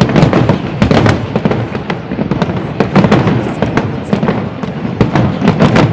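Aerial firework shells bursting in a dense, irregular barrage: many sharp bangs a second over a constant rumble and crackle.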